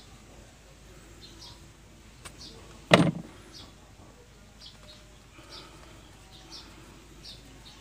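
A single sharp knock with a short ringing tail about three seconds in, a fainter click just before it, over small birds chirping again and again in the background.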